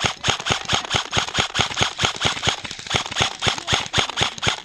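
Airsoft gun firing a steady, rapid string of sharp clicking shots, about five a second.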